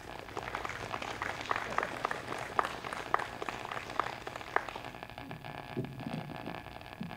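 Scattered applause from a small congregation, separate hand claps that thin out and stop about four and a half seconds in.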